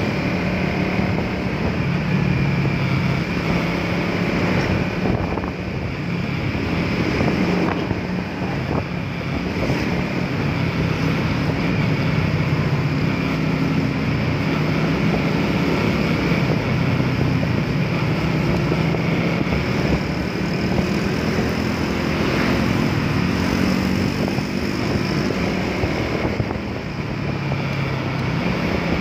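Suzuki Raider 150 Fi motorcycle's single-cylinder four-stroke engine running on the move, its note wavering a little as speed changes. Heavy wind noise on the microphone runs over it.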